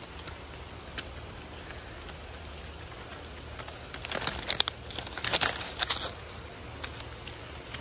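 Two short bursts of crackling, crinkling rustle about four and five seconds in, over a steady faint background hiss.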